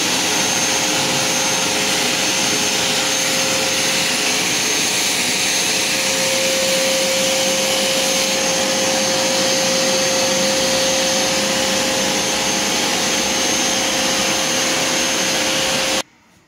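Vacuum cleaner running steadily with a steady whine, its hose nozzle drawn along a tile joint to suck up loosened old grout dust. It cuts off suddenly near the end.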